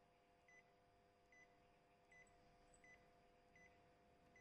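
Key-press beeps from an Epson L6490/ET-5150-series printer's touchscreen control panel, one short faint beep for each tap on the scroll arrow. There are about five or six, evenly spaced about three-quarters of a second apart.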